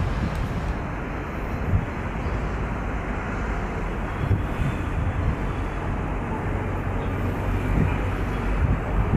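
Steady low drone of a distant ATR twin-turboprop airliner on final approach, under wind gusting on the microphone.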